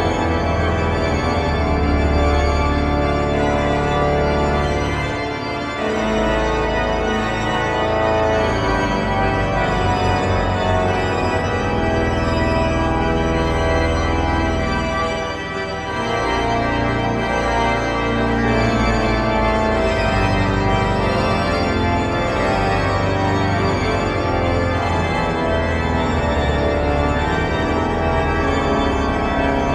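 The York Minster pipe organ playing loud, sustained full chords over a deep pedal bass, with short breaks between phrases about six seconds in and again about halfway through.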